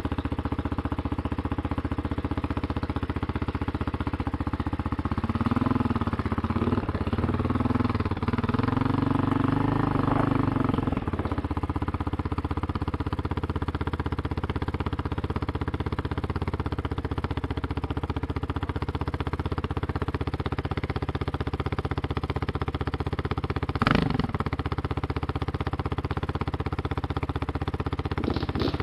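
Kawasaki KLX300R dirt bike's single-cylinder four-stroke engine idling, revved a few times between about five and eleven seconds in as the bike pulls away, then running steadily at low speed. A single sharp knock near the end.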